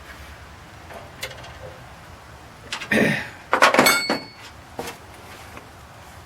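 Metal hand tools clinking and clattering while bolts are taken off in an engine bay: a few sharp knocks, then two bursts of clatter near the middle, the second with a bright metallic ring.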